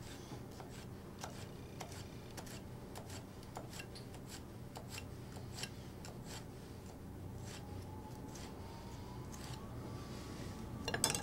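Global GS1 11 cm knife slicing a pepper on a wooden cutting board: the blade taps the board with each stroke in a faint, uneven series of about two taps a second, with a louder knock near the end.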